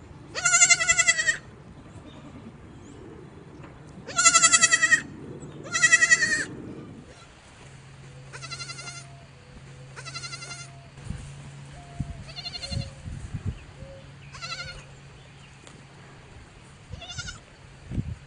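Goats bleating: three loud, quavering bleats in the first seven seconds, then five shorter, fainter bleats spread over the rest.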